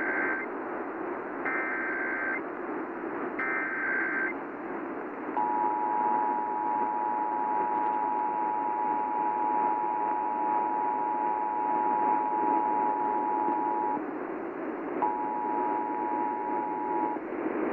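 Emergency Alert System test on AM radio: short buzzing digital header bursts about two seconds apart, then the steady two-tone attention signal. The tone breaks off for about a second and returns briefly near the end, over steady radio hiss.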